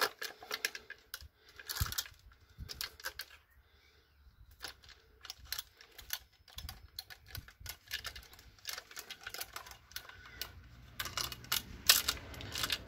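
Steel chainsaw chain clinking and rattling as its loose links are handled and worked around the drive sprocket and onto the bar: irregular clicks and short clusters of clicks, busiest in the second half, with one sharp louder click near the end.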